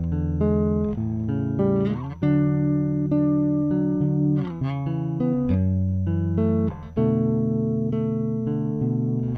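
Electric bass playing a slow passage of held notes and double-stops, with fresh notes struck about two seconds in and again near seven seconds. It is a tone demonstration of the bass through one of the 25k, 250k or 500k pots being compared.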